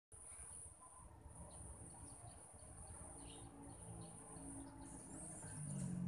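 Faint outdoor ambience: a steady high-pitched insect buzz with scattered short bird chirps, and a low hum coming in near the end.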